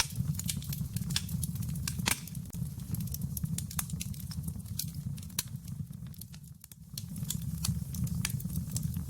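Wood fire crackling in a fireplace: irregular sharp pops and snaps over a low steady rumble, which drops away briefly about two-thirds of the way through.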